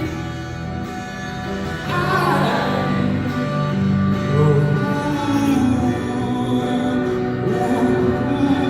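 Live band music from a stripped-down rock song's closing bars: held chords with some wordless singing.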